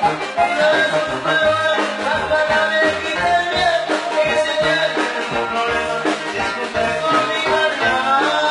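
Latin-style band music with a moving bass line and a steady beat.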